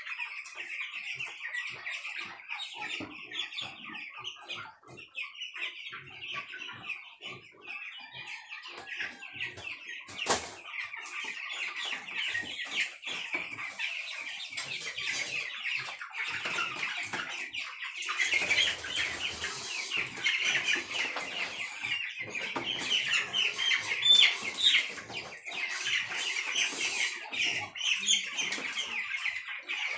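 Young broiler chickens calling with many short, high peeps, a continuous chatter that grows louder and busier in the second half, with wing flapping and scuffling as birds are handled in a plastic crate. A single sharp knock about ten seconds in.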